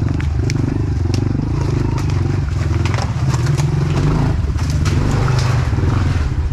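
Honda CRF110F pit bike's small single-cylinder four-stroke engine running steadily while ridden over rough, muddy ground, with scattered sharp clicks and knocks throughout.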